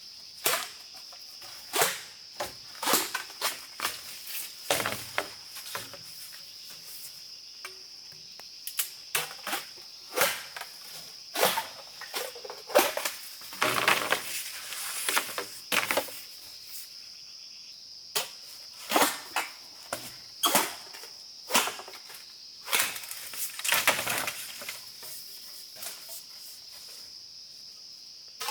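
Insects droning steadily at one high pitch, with frequent, irregularly spaced sharp knocks and cracks over it.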